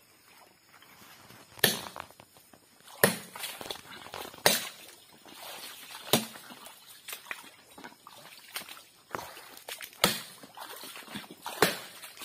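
Someone pushing on foot through dense, muddy swamp undergrowth: sharp cracks and snaps about every second and a half, with leaves and stalks rustling in between.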